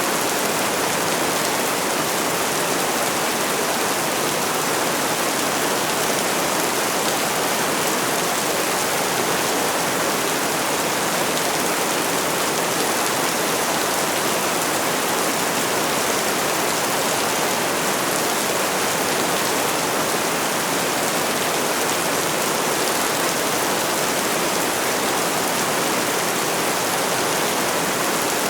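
Steady rainfall: an even, unbroken hiss of rain with no distinct drops or thunder.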